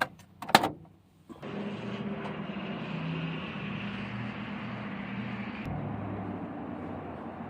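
A vehicle engine running with a steady hiss of road noise. It starts abruptly about a second and a half in, and the upper hiss drops off near the end.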